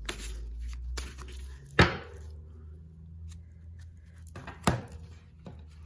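A deck of Wise Dog Tarot cards being shuffled by hand: soft rustling of the cards, with two sharp clacks, about two seconds in and near five seconds.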